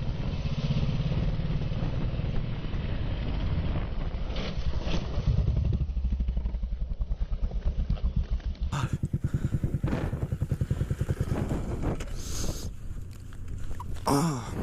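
Kawasaki KLX 250 SF's single-cylinder four-stroke engine running, then dropping to a slow, evenly pulsing low-revving note about six seconds in. It then gets quieter, with a few sharp knocks near the end.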